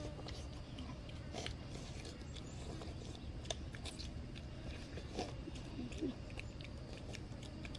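People eating cooked fish with their fingers: scattered short smacks and chewing clicks over a steady low background noise.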